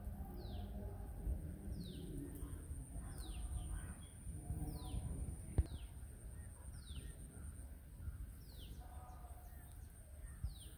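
A bird repeating a short, high, falling call about once a second. One sharp click about halfway through is the loudest moment.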